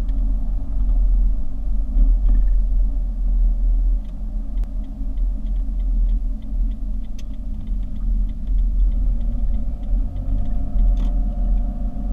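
A car driving: a steady low rumble of engine and road noise, with the engine note growing stronger about three-quarters of the way through. Faint, quick light ticking runs through the middle stretch.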